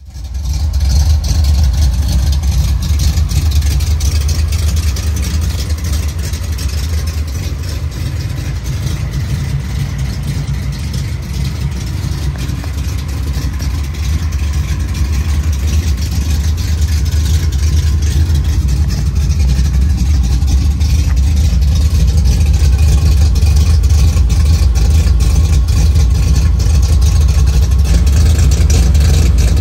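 Datsun Z's freshly installed 3.0-litre stroker L-series straight-six idling steadily with a deep exhaust rumble, a little louder in the second half.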